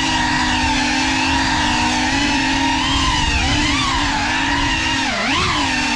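Geprc 5 FPV quadcopter's brushless motors and propellers whining in flight. The pitch dips and climbs back sharply about five seconds in as the motor speed changes.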